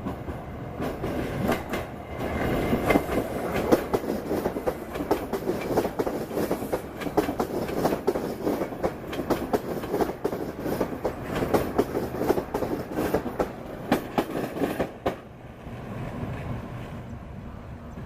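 A train passing close by, its wheels clacking rapidly over the rail joints as the cars go past. The clacking stops suddenly about three seconds before the end as the last car passes, leaving a quieter rumble.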